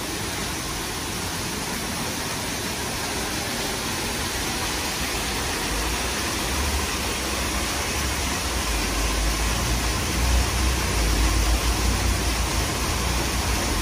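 Steady rushing and splashing of a small cascade falling from the rocks into a lake. A low rumble joins about halfway through.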